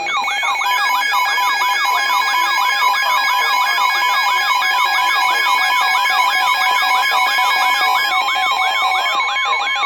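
Emergency Alert System alert tones over an FM radio broadcast: steady, piercing alarm tones held together, with a siren-like tone warbling rapidly up and down over them, about three to four sweeps a second.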